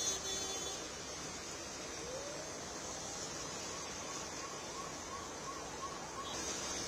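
Steady hiss of heavy rain falling. A brief tone sounds at the very start, and a row of faint short chirps, about three a second, runs through the middle.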